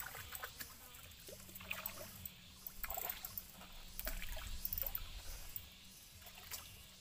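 Lake water lapping and splashing against the shoreline rocks, with scattered small clicks and a faint steady low hum through the middle.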